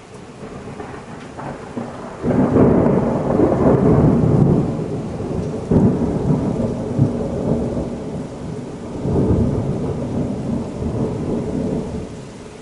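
Rolling thunder from a nearby thunderstorm. A low rumble builds, breaks loud about two seconds in, and rolls on in surges before dying down near the end, over the steady hiss of heavy rain.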